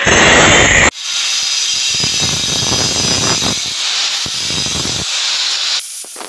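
Angle grinder with a thin cutting disc cutting through stainless steel pipe, a steady hissing grind. The sound breaks off abruptly about a second in and picks up again at once.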